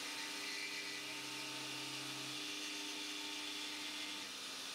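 Citizen L20X Swiss-type CNC lathe machining a brass part: a steady hiss with faint motor hums underneath, one of which stops about halfway through and others shortly before the end.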